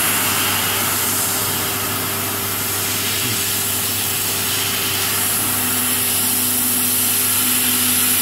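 Fiber laser cutting machine cutting sheet metal: a loud, steady hiss from the cutting head over a steady low hum, with a second low hum joining about five and a half seconds in.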